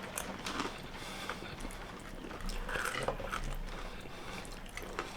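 A person chewing a mouthful of spicy chicken stir fry, quiet mouth sounds with scattered faint clicks.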